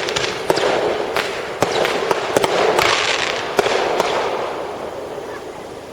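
Fireworks going off: sharp bangs and cracks over a dense crackle, dying away over the last couple of seconds.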